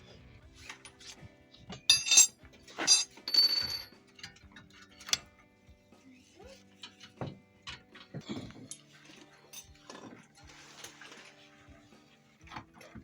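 Background music with a steady tune over sharp metallic clinks and clatter of tools and parts, loudest about two to four seconds in, then scattered knocks.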